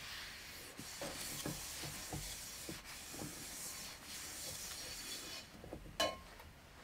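Kitchen utensil sounds: a soft hiss with light scraping and small taps, then a single sharp clink with a short ring about six seconds in.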